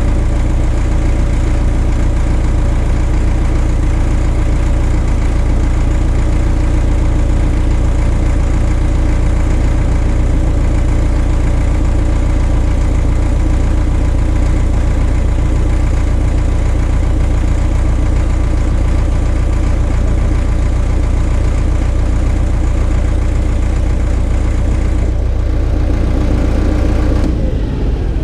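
Caterpillar D4 bulldozer's diesel engine running steadily, with a strong low hum, being used to turn the drive sprocket. A few seconds before the end the higher part of the sound falls away and the engine note changes.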